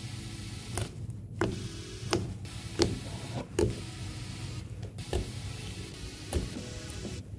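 Fluffy slime being poked and pressed by hand, giving short, sharp pops and squelches every half second to a second, the loudest about three seconds in, over a steady low hum.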